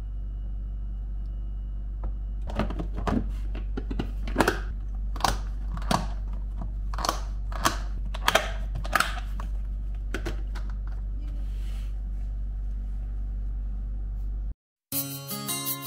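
Clip-lock latches on plastic food-storage container lids being snapped shut, a run of sharp plastic clicks, over a steady low hum. The hum cuts off near the end and plucked-string music begins.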